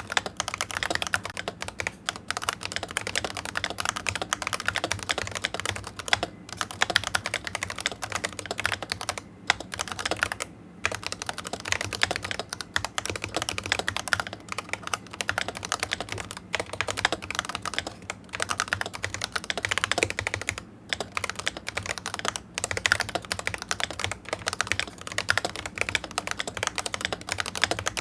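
Razer Huntsman V2 Analog keyboard with analog optical switches being typed on quickly, a fast continuous run of keystroke clacks broken by a few short pauses.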